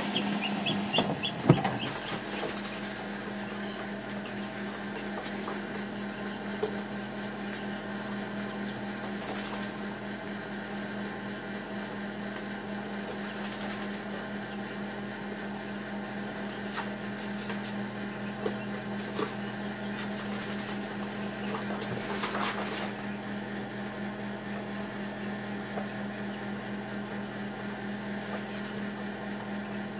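Steady electric hum of an egg incubator's fan motor, with a few sharp clicks in the first two seconds.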